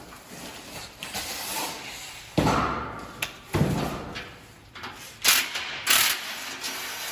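Metal parts and tools clattering as a motorcycle is unpacked from its shipping crate, with ratchet-like clicking, two heavy thumps in the middle and two sharp knocks near the end.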